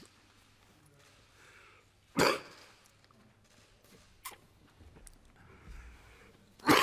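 A man's coughing fit: one sharp cough about two seconds in, a faint one around four seconds, and a loud double cough near the end. The fit has left him losing his voice.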